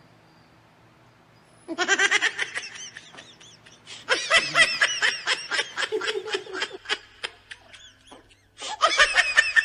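A person laughing hard in quick, high-pitched bursts. The laughter breaks out about two seconds in, comes again louder about four seconds in, and starts up once more near the end.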